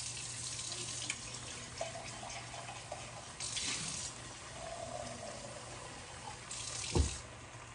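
Kitchen tap running in three short spells as a cup is filled with water, with a thump near the end.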